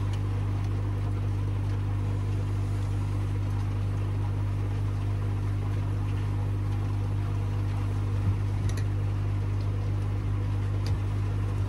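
Steady electrical hum from running pond filter equipment, with a few faint clicks from plastic pipe fittings being handled in the second half.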